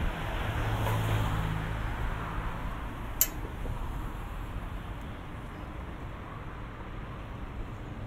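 Street traffic: a motor vehicle's engine hums close by and fades away over the first few seconds, leaving a steady background of road noise. One sharp click sounds about three seconds in.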